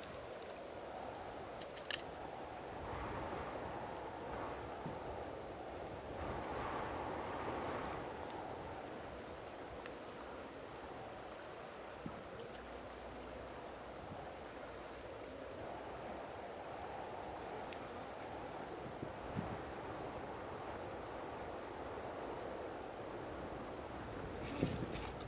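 An insect chirping at a steady rate of about two high-pitched chirps a second, over a steady low rushing noise, with a few light knocks scattered through.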